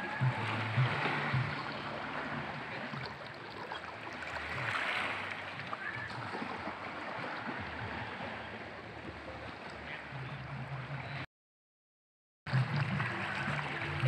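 Small sea waves lapping and washing among shoreline rocks in a steady wash of water. About eleven seconds in, the sound drops out to silence for about a second, then resumes.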